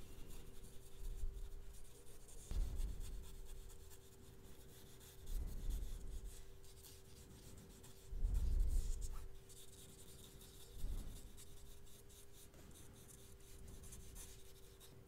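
Damp paintbrush rubbing in small circles over watercolor pencil on paper: faint scratchy brushing with a few soft low bumps, over a faint steady hum.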